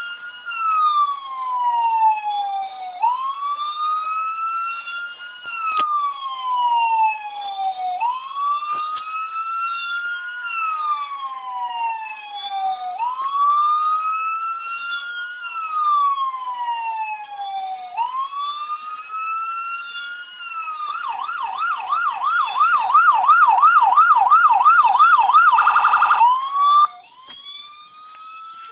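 Electronic police siren through a 4-inch speaker in a Peg Perego Gaucho ride-on Jeep's grille. It sounds a repeating wail, each cycle rising quickly and falling slowly about every two and a half seconds, then switches to a louder fast yelp of about four cycles a second for around five seconds. Near the end it cuts off and a much quieter wail starts, from the smaller standard siren speaker.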